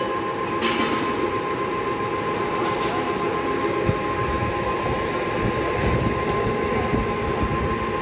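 All-geared Kirloskar Turnmaster 350 lathe running, a steady mechanical rumble with a constant gear whine, the low rumble growing heavier about halfway through.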